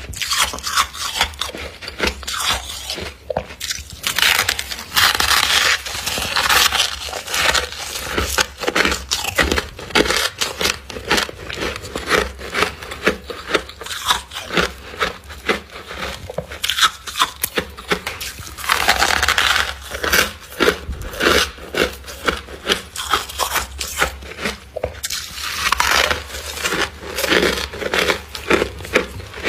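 Close-up chewing and crunching of humidifier frost ice in the mouth: a dense run of crisp, irregular crunches, over a low steady hum.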